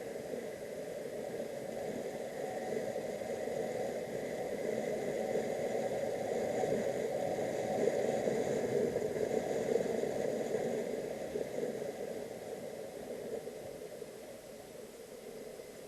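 Motorcycle on the move: steady engine and road noise that grows louder toward the middle and then eases off.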